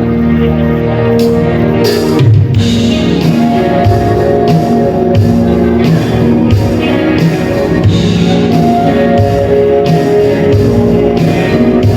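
Music: held chords give way about two seconds in to a band playing with guitar and a steady drum beat.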